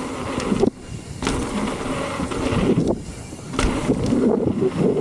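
Mountain bike riding down a dirt jump trail: tyres rolling over dirt and the bike rattling, with a rushing noise over it. The noise drops off briefly twice, about a second in and at about three seconds, then comes back.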